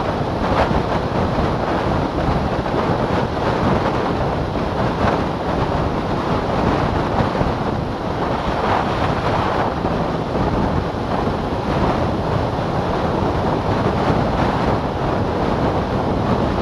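Steady wind rush buffeting the microphone of a camera on a motorcycle riding at about 45 mph, with road noise mixed in.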